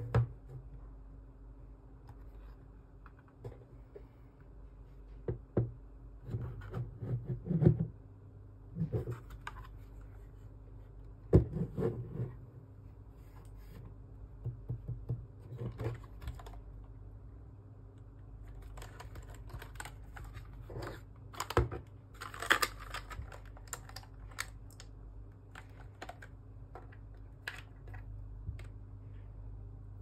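Royal Kludge RK84 mechanical keyboard being handled and turned over on a desk: scattered clicks and knocks from its plastic case and keys, with a few louder knocks.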